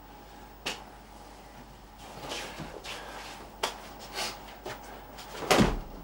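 Martial-arts uniforms rustling and bare feet shuffling and stepping on a padded mat, with a few sharp clicks and a loud thump near the end as the attacker steps in and grabs.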